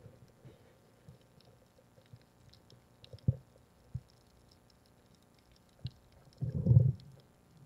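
Underwater sound picked up by a diver's camera: faint scattered clicking and crackling, a sharp knock about three seconds in and a smaller one a second later, then a louder low burst of noise lasting about half a second near the end.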